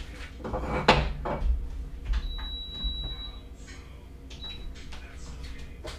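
A few knocks of kitchen things being handled, then a digital rice cooker's control panel beeping: one long electronic beep of about a second, and a short beep a moment later, as it is set to cook white rice.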